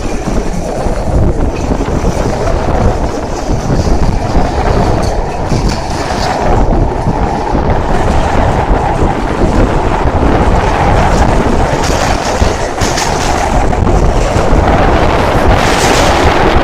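Passenger train running at speed, its wheels rumbling and clacking over the rails, heard from inside the carriage.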